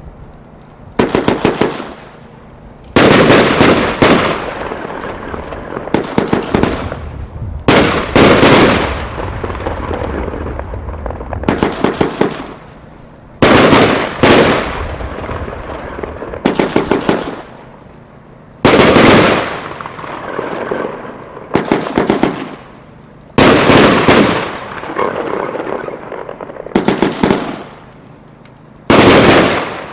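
Weco 'Iron Man' consumer firework firing volley after volley, roughly every two seconds. Each volley is a quick cluster of sharp bangs followed by a fading crackle.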